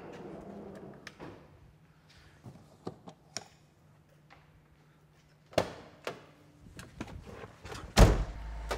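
Light steps and scattered small knocks, a thump about five and a half seconds in, then an ambulance van's door slammed shut near the end, the loudest sound, followed at once by a steady low rumble.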